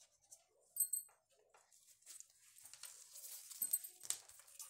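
Newspaper pattern paper rustling and crinkling as it is handled on the cutting table, with scattered light clicks. A couple of short high squeaks come about a second in.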